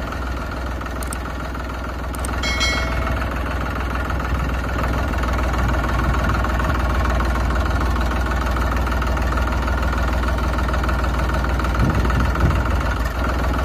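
Tractor engine idling steadily, with a strong low rumble.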